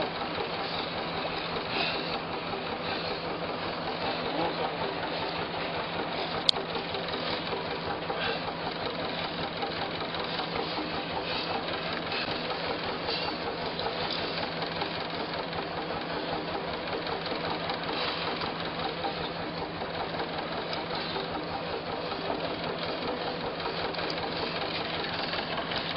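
Boat engine running steadily, with wind and sea noise over it. A single sharp click comes about six and a half seconds in.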